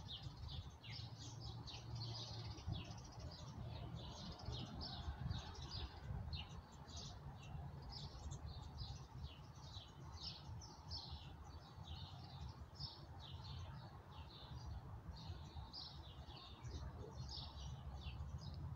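Songbirds chirping and singing, a steady stream of short, quick, high chirps, over a faint low rumble.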